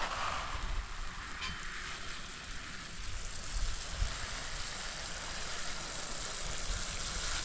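Water from a watering can's sprinkler rose showering onto the soil of potted seedlings and plastic nursery bags: a steady hiss and patter.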